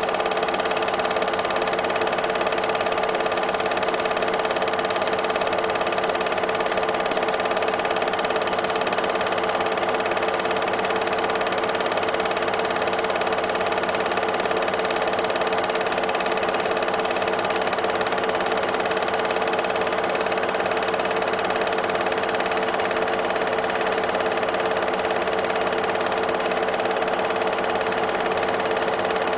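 An 8mm film projector running: a steady, unchanging mechanical whirr with a hum of several even tones.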